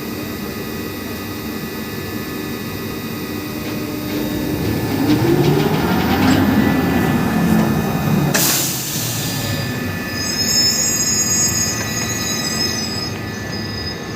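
Drilling rig machinery running during a running-in operation: a steady mechanical din that swells and falls back, a sudden sharp hiss about eight seconds in, then high-pitched squealing.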